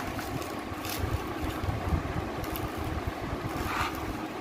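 Steady low rumbling background noise, with a few brief rustles as small cardboard sparkler boxes are handled, about one second in and again near the end.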